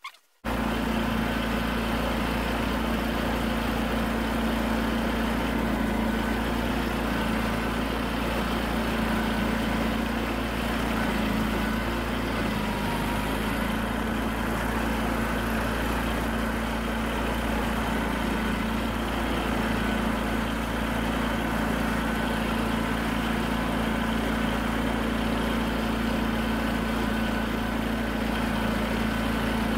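John Deere 317 lawn tractor engine running steadily at constant speed, driving its front-mounted snowblower as it throws snow.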